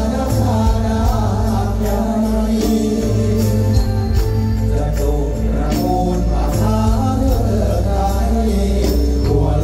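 Loud stage-show music from the PA for a Thai apsara dance: a steady bass and drum beat with jingling percussion, and singing over it.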